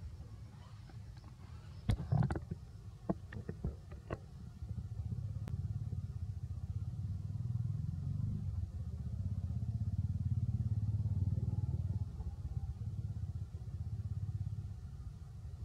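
A few sharp clicks and knocks, then a low motor-vehicle engine rumble that swells, holds for several seconds and eases off near the end.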